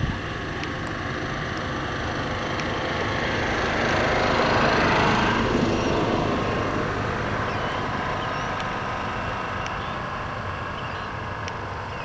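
A passing vehicle: a steady motor noise that swells to its loudest about four to five seconds in, then slowly fades.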